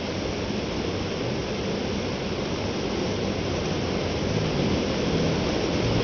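Waterfall water spilling down a mossy rock face: a steady rushing noise with no let-up.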